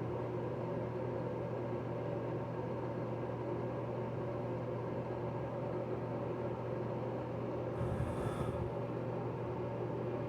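Steady mechanical hum with a low drone underneath, with a brief rustling noise about eight seconds in.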